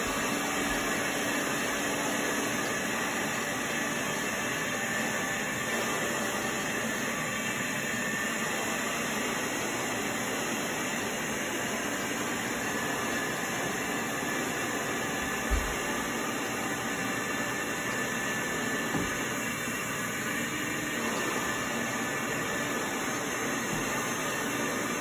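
A 1965 Compact canister vacuum cleaner running steadily with its dusting brush attached, a continuous whooshing hiss of drawn air and motor. There are two brief light knocks, about fifteen and nineteen seconds in.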